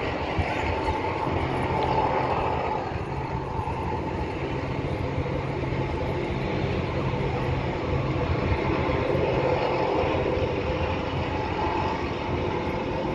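Steady low engine drone, with a hum that slowly swells and fades in pitch bands.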